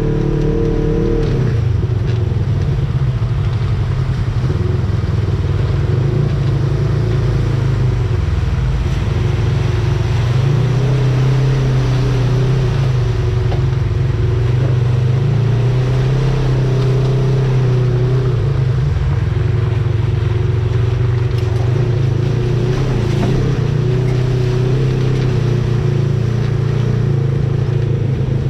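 Off-road four-wheel-drive vehicle's engine running loud while driving, its pitch rising and falling with the throttle.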